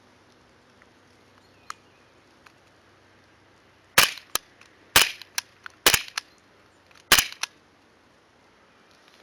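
STI Duty One CO2 blowback airsoft pistol fired four times, each shot a sharp crack with the slide cycling back. Each shot is followed about a third of a second later by a fainter click as the BB strikes the target.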